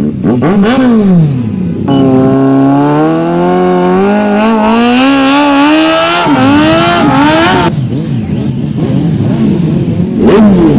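Motorcycle engine revving and accelerating: a quick rev up and down, then a long climb in pitch that drops about six seconds in, like a gear change, and climbs again. After that comes rougher engine noise, and another quick rev near the end.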